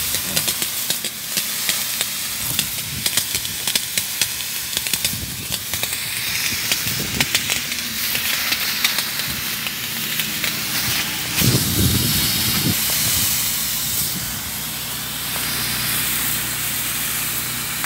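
Fire-hose water jet hissing as it sprays into burning reeds and dry grass, with many small crackles and pops from the wetted, smouldering vegetation; the water hitting the embers sizzles and raises steam.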